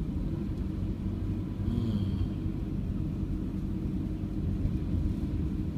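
Renault Master van driving at low speed in town, its engine and road noise heard as a steady low hum inside the cab.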